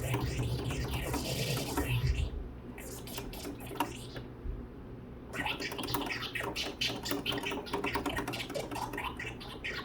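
Vinyl record being scratched back and forth on a turntable over a beat, the pitch sweeping up and down. About two seconds in, the music cuts out, leaving quick clicks and scrapes from hands on the record and the mixer controls.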